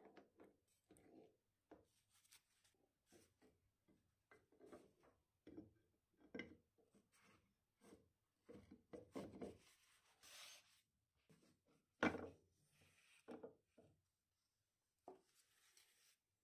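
Faint rubbing and light clicks of steel parts of an old dividing head being handled and fitted over its spindle by gloved hands, with one sharper knock about three quarters of the way through.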